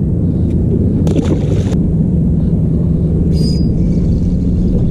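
Steady low rumble of wind and water around an open fishing boat, with a steady hum joining about two seconds in and a brief rushing noise about a second in.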